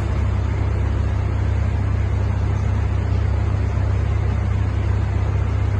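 A steady low hum with an even hiss over it, unchanging throughout; no coughs or breaths stand out above it.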